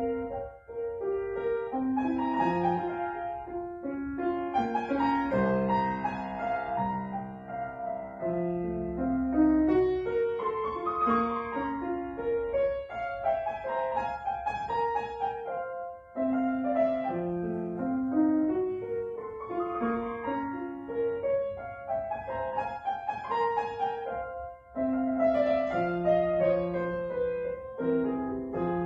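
Grand piano played solo, a flowing classical piece in moderate tempo, with two short breaks between phrases.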